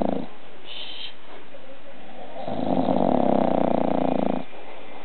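Bulldog snoring in its sleep, human-like: the tail of one loud rattling snore at the start, then after a quieter breath a second long rattling snore about halfway through. A brief faint high squeak sounds about a second in.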